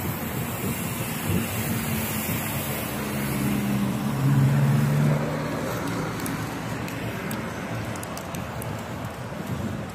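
A car driving close past a moving bicycle, its engine hum growing and loudest about four to five seconds in, then fading, over a steady rush of wind and road noise.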